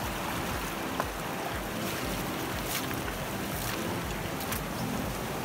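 Steady rush of a clear river flowing over stones, with a few short crunches of footsteps on the gravel bank.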